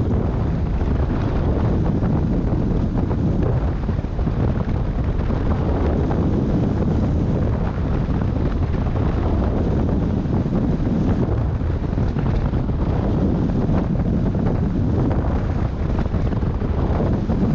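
Airflow from a hang glider in flight rushing over the microphone: steady, loud wind noise, heaviest in the low range, with no clear engine tone.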